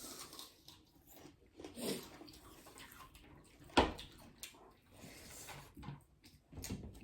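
Eating sounds: chewing and wet mouth noises, with scattered small clicks and one sharper click a little under four seconds in.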